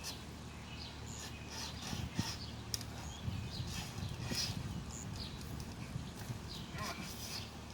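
Braided-wire survival saw pulled back and forth through a tree branch, rasping in short, uneven strokes.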